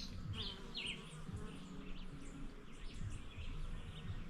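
Faint outdoor ambience: an insect buzzing with a wavering low hum, and scattered short bird chirps.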